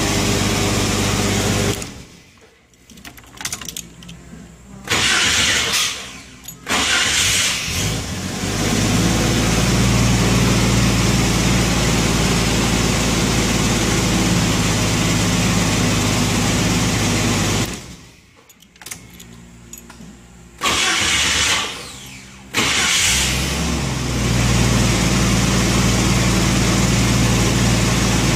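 1990 Jeep Wrangler 4.2-litre inline-six idling, switched off, then cranked by a newly fitted remanufactured starter and restarted, twice over. Each restart is a brief burst of starter cranking before the engine catches and settles into a steady idle.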